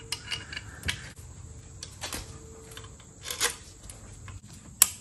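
Hand tools and metal parts clicking and knocking while working on an outboard's lower unit: a few scattered clicks, with a sharp, louder click near the end.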